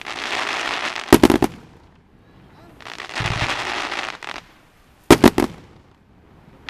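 Aerial fireworks shells bursting: tight clusters of sharp, loud bangs about a second in and again about five seconds in, with stretches of steady hissing noise and a dull low thud between them.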